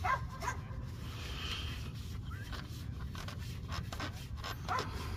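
Gloved hands turning a spin-on oil filter onto its threaded mount and wiping it with a shop towel: short scraping and rubbing strokes with a few light clicks, over a steady low background rumble.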